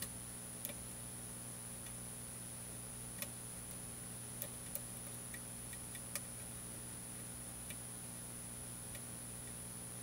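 Faint, irregular clicks of a steel lock pick lifting and rotating the pins inside a Medeco M3 mortise cylinder held under tension, about a dozen of them, most between three and six seconds in. A steady low hum and a thin high whine run underneath.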